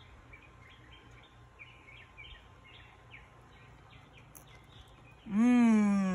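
Birds chirping faintly in the background, then near the end a woman's loud, drawn-out 'mmm' of enjoyment while eating, rising and then falling in pitch.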